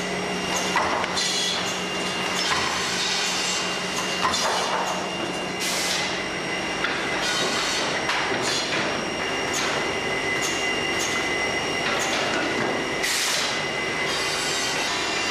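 FORMA CNC 180 automatic cross-cut saw running: a steady machine whine with repeated short hissing bursts as the blade cuts through the wooden boards, the longest about six and thirteen seconds in, and a few sharp clicks.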